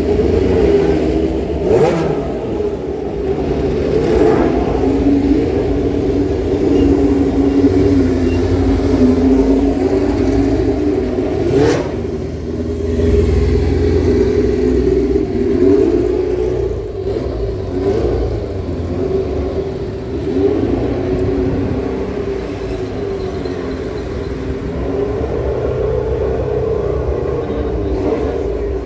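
Historic Formula One car engines running and revving, their pitch rising and falling again and again through the gears.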